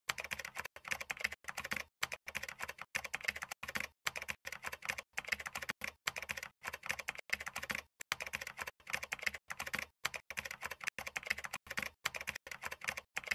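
Rapid typing on a computer keyboard: a dense run of clicks broken by short pauses, starting suddenly.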